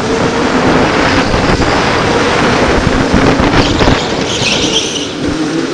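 Electric go-karts running at speed: a steady motor whine that rises near the end, over tyre and wind rumble on a helmet-mounted camera. A high tyre squeal comes in about four seconds in as the karts take a corner.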